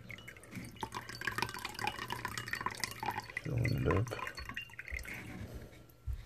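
Water trickling and dripping from the partly unscrewed drain pump filter of a Kenmore front-load washer into a shallow plate, briefly louder a little past halfway. It is the standing water left in the washer by a drain that will not empty, the F21 fault.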